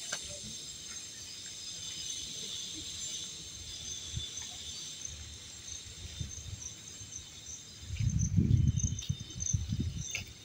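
Insects chirring steadily in dense vegetation, a layer of several high-pitched tones. About eight seconds in, a burst of low rumbling lasts a couple of seconds and is louder than the insects.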